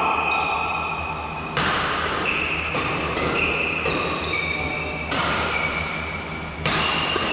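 Badminton rally: racquets striking a shuttlecock, with sharp hits about every one to two seconds, among high squeaks from shoes on the court floor.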